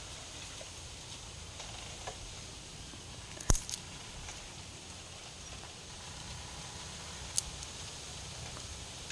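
Two sharp clicks or knocks over a steady low background noise: one about three and a half seconds in, followed closely by a smaller one, and another near seven and a half seconds.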